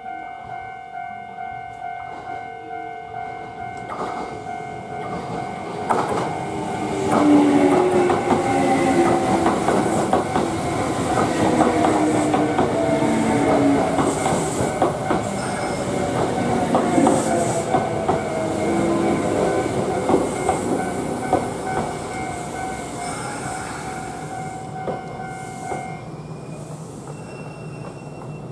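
A Kintetsu electric train passes over a level crossing with clattering wheels, loudest a few seconds in and fading away toward the end. The crossing alarm rings steadily throughout and stops shortly before the end, once the train has cleared.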